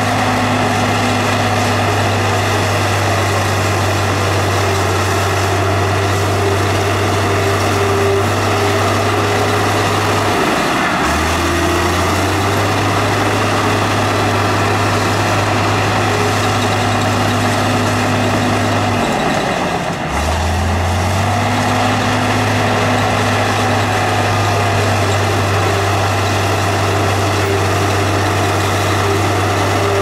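Heavy diesel engine of earthmoving machinery running steadily and loudly. Its pitch dips briefly and recovers twice, about a third and about two thirds of the way through.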